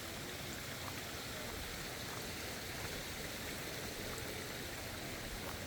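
Steady rushing of water, with a few faint ticks.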